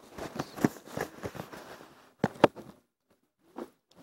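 Lego minifigures and plastic pieces being handled and shuffled, with small plastic clicks and rustling, then two sharp clicks about two seconds in.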